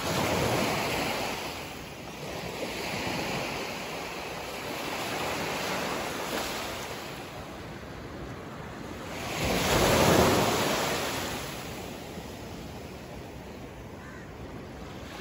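Small sea waves washing in and out on a sandy beach, rising and falling every few seconds, with the biggest wash about two-thirds of the way through.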